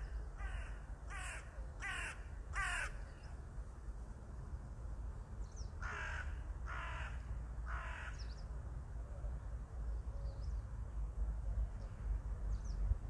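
A crow cawing in a series of harsh calls: four caws about 0.7 s apart in the first three seconds, then three more about a second apart a few seconds later, over a steady low background rumble.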